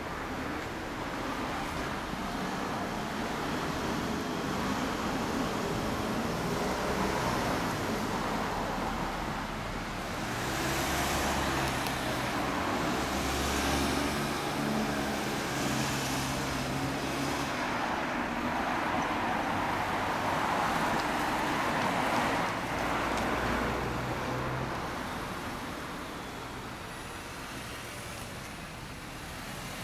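Road traffic: cars and vans driving past on a street, the noise swelling and fading as each goes by, loudest through the middle and dying down near the end.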